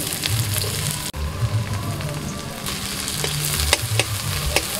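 Chopped onion sizzling in hot oil in a kadai, stirred with a flat spatula. A few sharp knocks and scrapes of the spatula on the pan come near the end.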